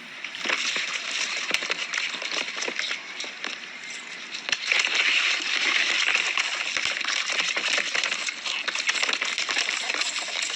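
Water splashing and sloshing, full of small crackles and clicks, growing louder about half a second in and again midway.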